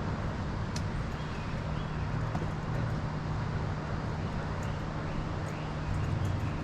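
Steady roar of river rapids, with a few faint short bird chirps and scattered light ticks over it.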